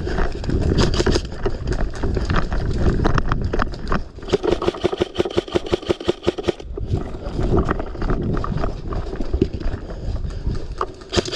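Airsoft guns firing rapid strings of shots, sharp clicks at roughly eight a second, over the rustle and thump of a player moving.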